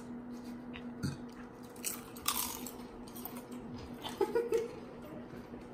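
People biting into and crunching Lay's potato chips, with a few separate crunches scattered through. A steady low hum runs underneath.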